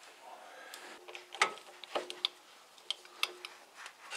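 A socket wrench clicking and ticking on the crankshaft pulley bolts, which are held against crankshaft rotation and tightened toward 20 Nm. The clicks come irregularly, with a sharper one about a second and a half in.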